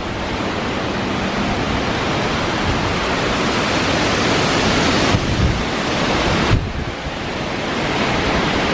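Strong wind in the back half of a hurricane, rushing through the trees and buffeting the microphone. A stronger gust comes about five seconds in, lasts about a second and a half, then eases.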